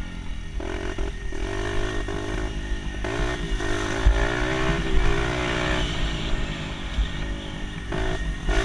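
Dirt bike engine running under throttle while riding, its pitch rising and falling repeatedly, over a heavy low wind rumble on the microphone.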